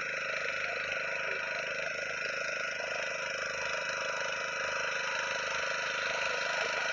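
A motor running at a steady speed: an even, unchanging hum made of several steady tones.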